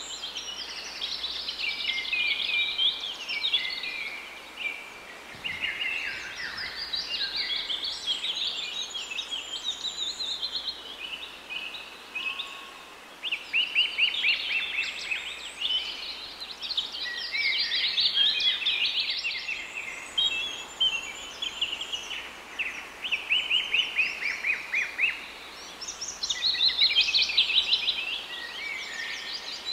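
Several small birds singing and twittering in an almost unbroken chorus of high, quick chirps and rapid trills that overlap one another, over faint outdoor background hiss.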